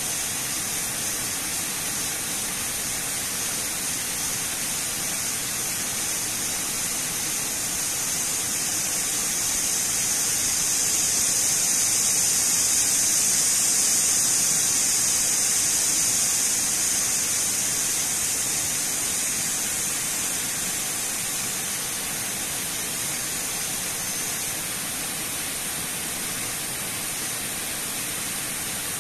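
Water pouring down the face of a concrete dam spillway into a pool: a steady, loud rushing hiss that swells for several seconds in the middle and then eases back.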